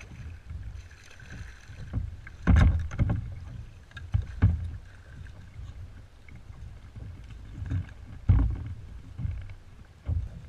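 A redfish being netted and hauled into a plastic kayak: water splashing, then a series of loud knocks and thuds as the landing net and the fish come aboard against the hull, the biggest about two and a half seconds in and again past eight seconds, over the low rumble of wind on the microphone.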